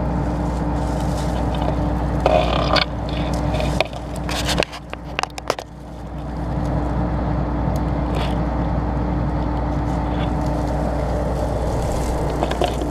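Steady drone of a combine's engine idling, with rustling, scraping and crackling from dry soybean vines and pods being handled. The drone dips briefly about four to six seconds in, amid a cluster of sharp clicks.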